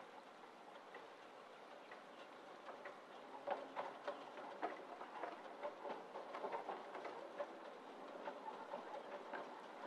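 2 ft gauge colliery steam locomotive moving onto a bridge, heard faintly: irregular metallic clanks and knocks that start and grow louder about three and a half seconds in.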